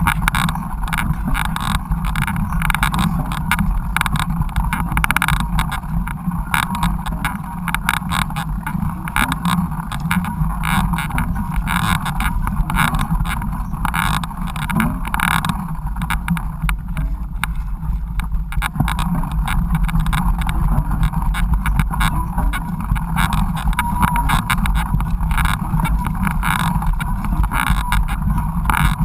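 Riding noise from a mountain bike on a rough trail: wind buffeting the action camera's microphone, with a constant rattle and rumble from the bike over the ground.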